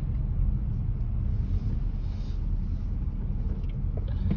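Steady low rumble of a car's engine and tyres, heard from inside the cabin while the car is moving.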